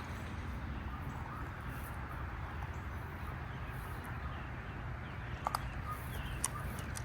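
Steady outdoor background noise with a low rumble, like wind on the microphone by a river, with a few short sharp clicks about five and a half seconds in and again a second later.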